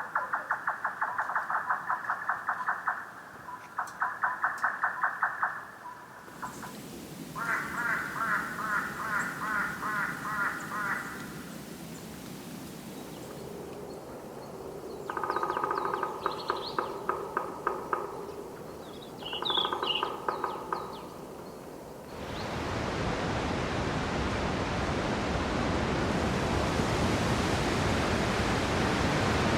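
A sequence of wild nature ambience recordings. First come rapid trains of pulsed animal calls in several separate bursts. About two-thirds of the way in they give way to steady rushing water, like a mountain stream.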